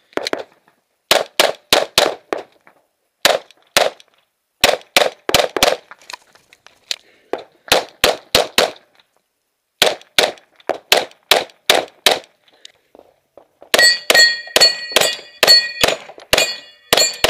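9mm Glock pistol fired in quick strings of two to four shots, with pauses of a second or so between strings, many of them for reloads. In the last few seconds the shots come with the ringing clang of steel targets being hit.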